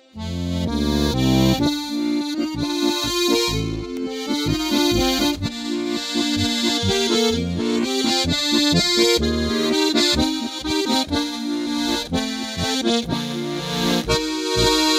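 Styrian button accordion (Steirische Harmonika) playing a march: melody and chords over a steady beat-by-beat bass, starting again after a short break at the very beginning.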